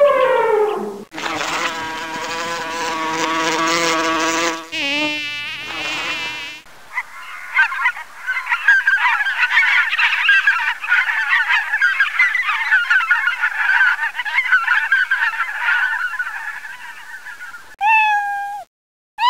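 A run of separate animal sounds. First comes a few seconds of buzzing at a steady pitch, then a short wavering call. Then about ten seconds of a dense chorus of many overlapping calls from a flock stops suddenly, and a short falling call follows near the end.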